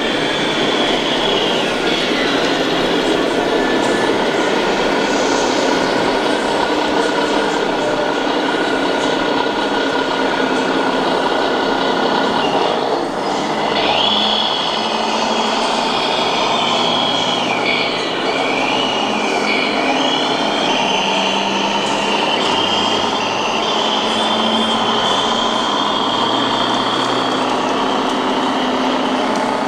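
Radio-controlled model trucks driving on a track: a high-pitched electric motor and gearbox whine that dips and rises with their speed, over a steady hall hubbub.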